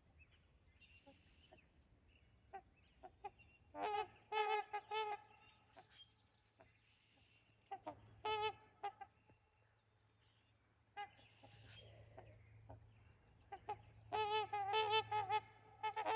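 Trumpeter swans calling: repeated honks in three bouts, a few seconds apart, with fainter calls in between. The last bout near the end is the longest and busiest.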